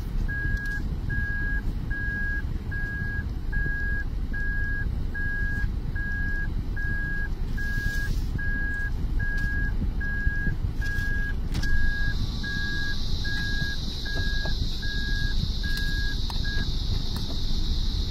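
A car's in-cabin warning beep sounding about twice a second over the low rumble of the idling car, stopping near the end. About two-thirds of the way through, a steady high hiss joins.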